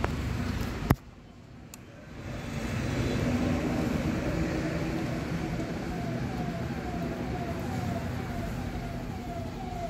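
Background traffic and workshop noise, with a sharp click about a second in. From about halfway through, a siren-like electronic tone repeats, each note falling in pitch, about two a second.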